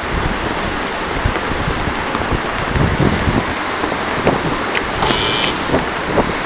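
Steady rushing noise of wind buffeting the microphone and fast river water around a non-powered cable ferry. There are scattered light knocks and a brief high squeak about five seconds in.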